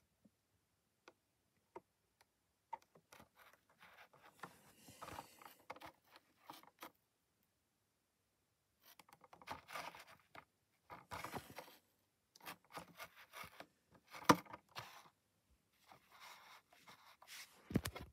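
Hard clear plastic collector case, with a carded diecast car inside, being turned over in the hands: irregular bursts of faint scraping and rubbing, with one sharp click partway through.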